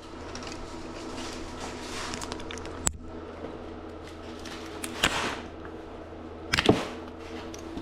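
A steady low hum, with a sharp click about three seconds in and a few brief knocks or rustles later.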